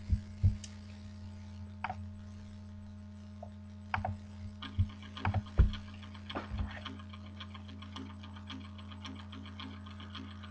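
Steady electrical mains hum with a series of dull knocks and bumps scattered through the first two-thirds. From about halfway a faint, quick, even ticking rhythm begins: music starting up quietly from a speaker.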